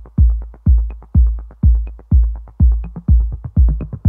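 Background electronic dance music: a heavy kick drum beating about twice a second under quick, even hi-hat ticks, with a low synth bass line coming in near the end.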